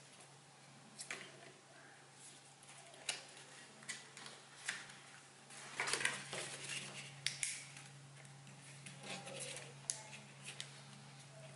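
Die-cut cardboard of a Google Cardboard viewer being folded and handled: scattered rustles, creases and taps of the flaps and tabs, with a louder flurry about six seconds in. A steady low hum sits underneath.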